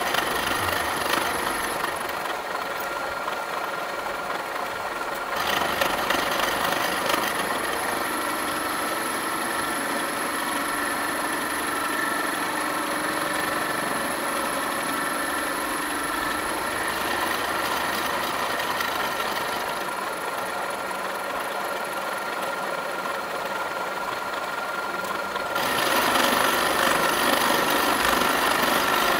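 Milling machine face-milling the top of a rusty steel block with an insert face-milling cutter: a steady metal-cutting noise with a ringing whine. The tone shifts abruptly about five seconds in and again near the end.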